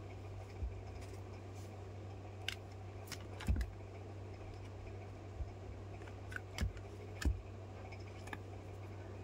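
Scattered light clicks and knocks, about seven in all, the sharpest about halfway through and near the end, from hands handling a phone and small tools on a work table, over a steady low electrical hum.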